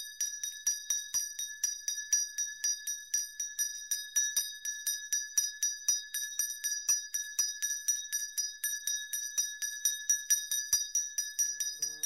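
A handbell rung continuously, struck about four times a second, its bright ringing tone carrying on between strikes.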